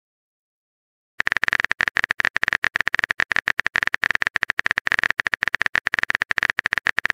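Smartphone keyboard typing sound effect: rapid, uneven key clicks that start about a second in and run on, many a second, as a chat message is typed.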